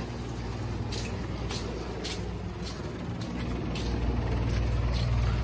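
Steady low electric motor hum, growing louder toward the end, with a few short sharp clicks or hisses over it.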